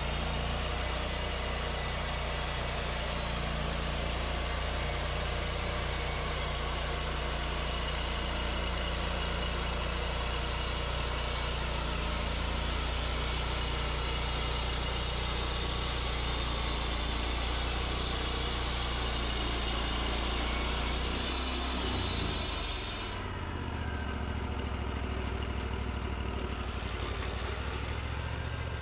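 Wood-Mizer LT40 portable band sawmill sawing a pine log into boards: the engine runs steadily under the hiss of the band blade cutting. About 23 seconds in, the cutting hiss stops abruptly as the blade leaves the log, and the engine keeps running.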